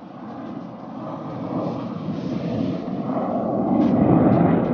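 Jet noise from a pair of A-7 Corsair II attack jets' turbofan engines in flight: a deep rushing rumble that grows steadily louder.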